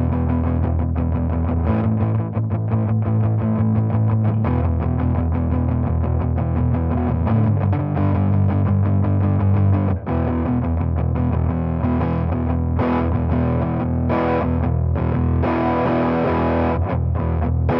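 Electric guitar played through a Custom Screamer V2, a Tube Screamer-style overdrive pedal, giving a distorted tone. Sustained chords change every couple of seconds, with a brief break about ten seconds in.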